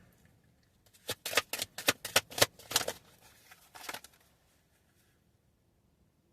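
Tarot deck being shuffled by hand: a quick run of about eight sharp card snaps, then one more a second later.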